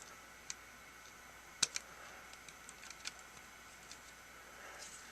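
Faint, scattered clicks and taps of small plastic parts being handled and pressed into a cordless screwdriver's housing, the sharpest a quick pair of clicks a little under two seconds in.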